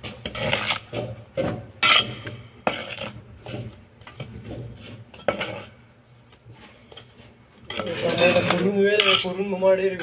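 Steel bricklaying trowels scraping and clinking against mortar and hollow clay bricks as mortar is spread along the top of the wall: a run of sharp scrapes and taps in the first two seconds, then single clinks a few seconds apart.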